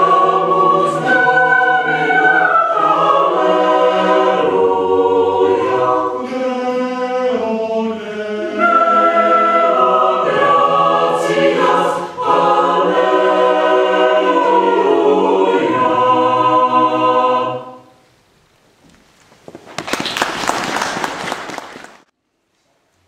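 Mixed choir singing a cappella in sustained chords. The last chord dies away about 17 seconds in, and about two seconds later a short burst of applause starts, then cuts off suddenly.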